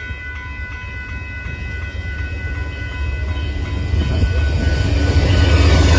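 Railroad crossing warning bell ringing in a steady repeating pattern while an approaching Amtrak passenger train's low rumble grows louder over the last few seconds, coming to cover the bell.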